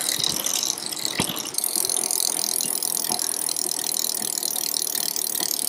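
Rear wheel of a hub-motor e-bike spinning freely after being turned by hand, its freewheel ratchet clicking rapidly and steadily.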